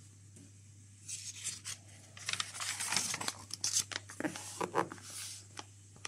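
Paper pages of an instruction booklet rustling and crinkling as they are turned by hand, starting about a second in and lasting about four seconds.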